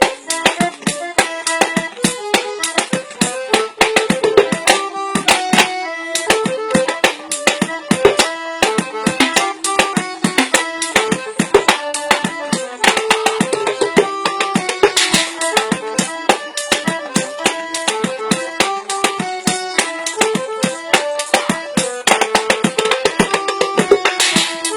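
Fast, dense drumming on a kit made of tin cans, many quick metallic strokes, played over music with a steady melody.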